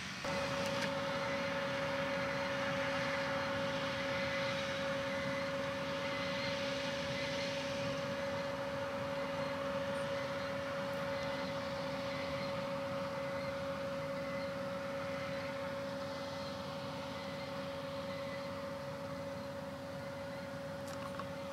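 John Deere 6150M tractor running steadily under load while pulling a three-point sprayer: an even engine drone with a steady high whine over it.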